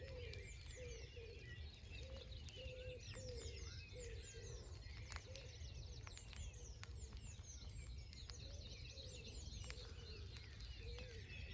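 Dawn chorus: many birds singing at once, with high chirps and trills, over a lower note repeating about twice a second.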